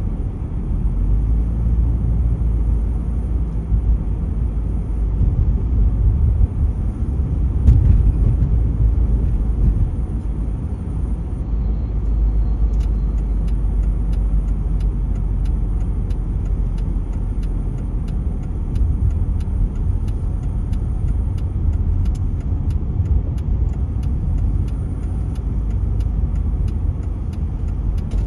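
Car driving at steady road speed, heard from inside the cabin: a low, even rumble of tyre and engine noise, with a brief thump about eight seconds in and faint, regular clicks in the second half.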